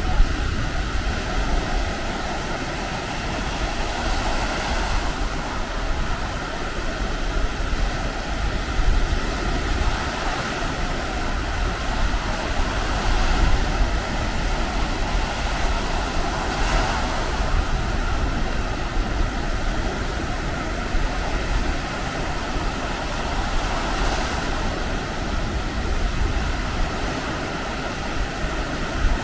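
Baltic Sea surf washing onto a sandy beach, with a wave breaking every several seconds over a steady wash. Wind rumbles on the microphone.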